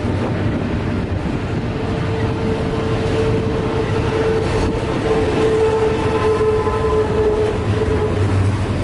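Double-stack intermodal container well cars of a freight train rolling past close by, with a steady rumble of wheels on rail. A steady whine joins in about two seconds in and fades near the end.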